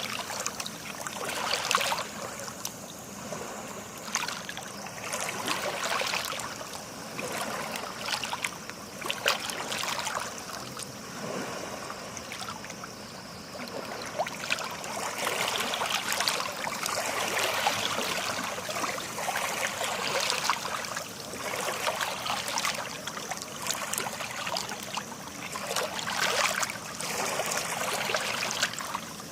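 Small sea waves washing on a shore: a rush of water with fizzing and trickling that swells and eases every few seconds.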